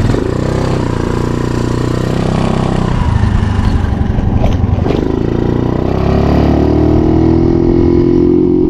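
Honda Navi's small single-cylinder four-stroke engine running under throttle, its pitch climbing slowly over the last few seconds, with two short clicks about halfway through.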